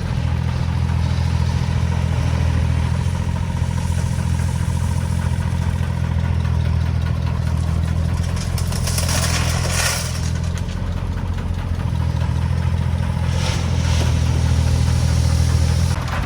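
Diesel engine running steadily, with a short burst of rattling noise about nine seconds in and a briefer one about thirteen seconds in.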